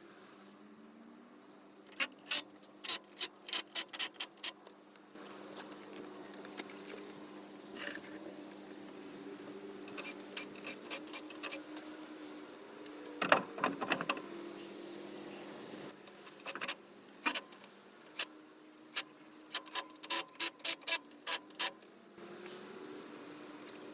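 Hand tools clicking in short, rapid runs of sharp metallic clicks, about four a second, with one louder clatter about halfway through. A steady low hum runs underneath.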